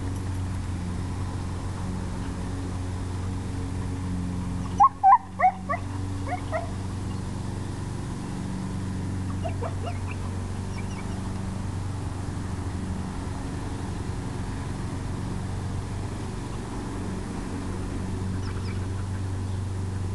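A dog gives three or four quick, loud, high yelps in a row about five seconds in, then a few faint yips later, over a steady low mechanical hum.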